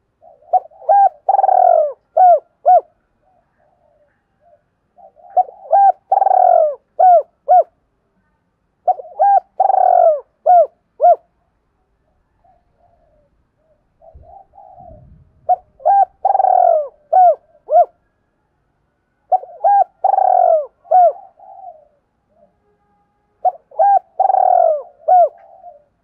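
Spotted dove cooing: six phrases of several short, quick coos around one longer coo, repeating about every four seconds. It is the call of a caged decoy dove, kept to lure wild doves.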